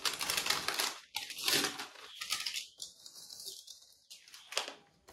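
Paper envelope packaging rustling and crinkling as it is handled and pulled open by hand, loudest in the first two seconds, then fainter scattered crackles.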